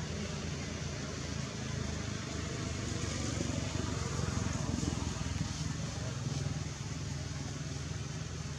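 A motor running: a steady low hum under a constant hiss, swelling louder and rougher for a few seconds around the middle.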